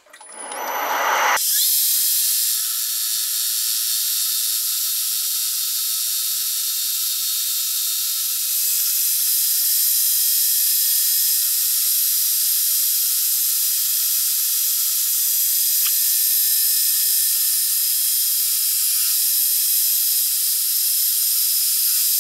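Metal lathe turning an aluminium billet: the cutting tool takes a light cut of about a millimetre with a loud, steady hiss. The hiss builds up over the first second or so, then holds.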